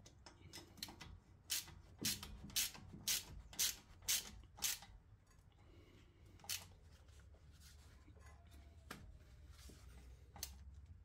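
Faint metallic clicks from a hand-held hex-bit driver turning the 6mm hex disc set screw into a new brake rotor: about two clicks a second for a few seconds, then a couple of single clicks later on.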